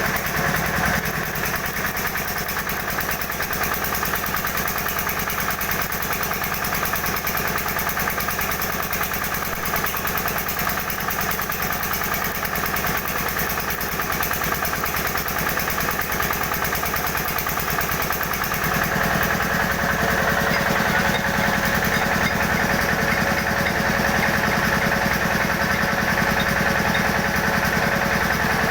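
An engine running steadily with a fast, even pulse, getting slightly louder about two-thirds of the way through.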